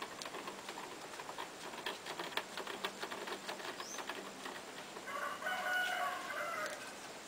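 A rooster crows once, about five seconds in, one call of a little over a second and the loudest sound here. Before it come scattered soft taps and clicks of wet clay being pressed and shaped by hand on a potter's turntable.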